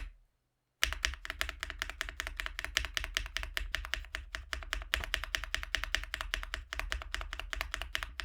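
Rapid typing on an Akko Mineral 01 aluminium mechanical keyboard with Akko Creamy Yellow U1 linear switches, a quick run of keystroke clacks that starts about a second in.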